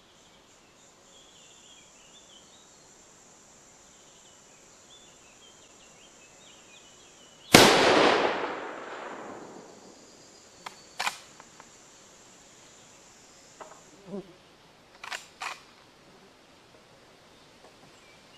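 A single rifle shot from a Winchester M1895 lever-action rifle firing a handloaded 7.62x54R round, with a long echo rolling away through the woods. A few sharp clicks follow a few seconds later.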